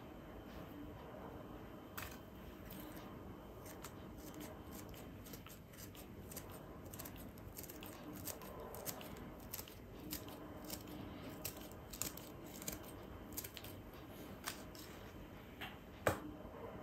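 Scissors snipping red chili peppers into small rings: a quick, irregular run of light, crisp snips, with one louder knock near the end.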